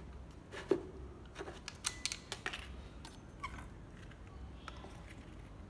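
Scattered clicks and light plastic knocks from a National 24V cordless hammer drill and its battery being handled. The motor does not start: on an 18V battery the drill lacks the power to run.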